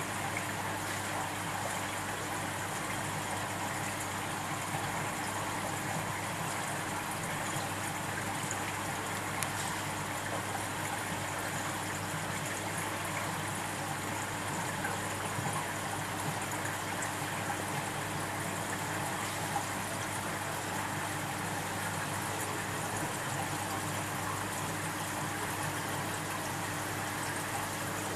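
Aquarium filter running steadily: an even rush of trickling water over a low electric hum.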